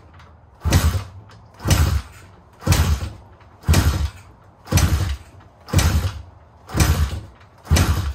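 Pit bike's single-cylinder four-stroke engine kicked over with the kickstarter about once a second, eight strokes in a row. A compression gauge is screwed into the spark plug hole, so the engine turns over against compression without firing: a kick-over compression test.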